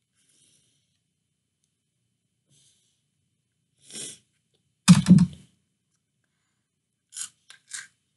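A quick intake of breath, then a loud sneeze about five seconds in, brought on by the chili heat of the Flamin' Hot Cheetos being eaten; two short, sharp breaths follow near the end.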